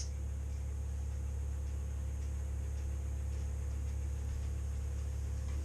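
Steady low mechanical hum of running machinery, with one sharp click right at the start.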